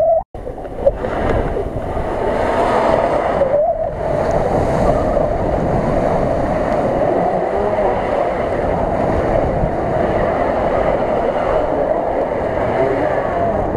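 Mitsubishi L200 pickup's engine revving hard under wheelspin in deep mud, its pitch wavering, over the rushing noise of spinning tyres throwing mud. The sound cuts out for an instant near the start.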